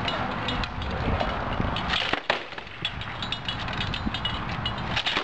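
Scattered sharp knocks and clacks of hard objects striking, over a steady background noise, with one louder crack about two seconds in.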